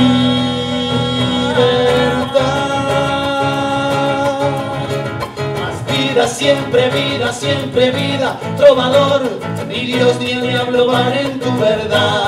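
Live song: nylon-string classical guitar being played under men's voices singing long held notes.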